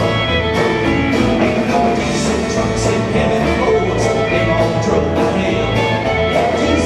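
A live country band playing: upright bass, drum kit, acoustic and electric guitars and fiddle, over a steady drum beat.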